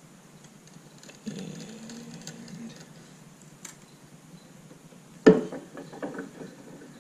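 Arbor press forcing a piece of thin galvanized sheet into a homemade 90-degree bending die: a low drawn-out creak from about one to three seconds in, then a loud metal clank about five seconds in, followed by a few lighter clinks.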